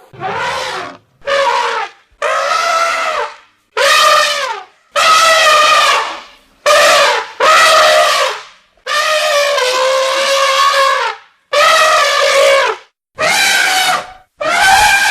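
Elephant trumpeting: about eleven loud, brassy calls in quick succession, each half a second to two seconds long, some bending in pitch at the end.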